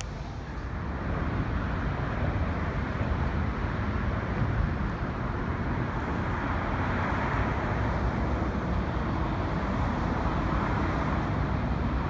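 Outdoor city street ambience: a steady wash of road traffic noise, growing a little louder after the first second.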